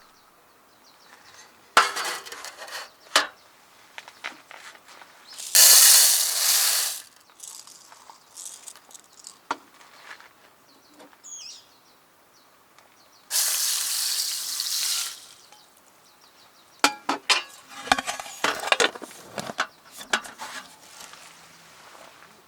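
Food sizzling in a hot camp wok in two short loud bursts, with scattered clicks and clinks of a utensil on metal between them.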